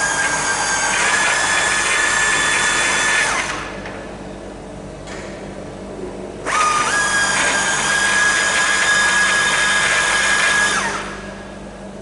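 Cordless drill running in two bursts of about four seconds each, a steady high whine that steps up slightly in pitch as each burst starts. It is drilling out rivets in an aluminium-alloy Lancaster wing rib.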